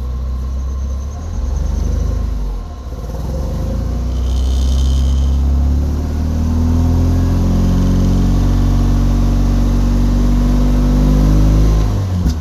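Porsche 944's four-cylinder engine running while it is being sprayed to keep it going. It sags and nearly dies about two and a half seconds in, then picks up and runs on steadily. A spray can hisses briefly about four seconds in.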